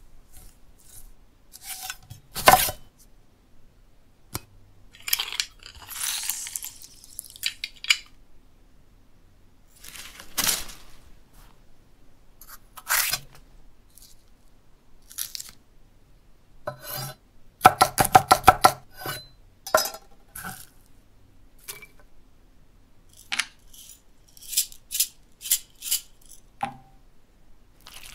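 Stop-motion food-preparation sound effects on a wooden table: separate knocks and knife cuts on wood, a brief rush of hiss about five to seven seconds in, and a fast run of about a dozen chops midway. Near the end small hard pieces click and grind as a stone pestle mashes in a stone mortar.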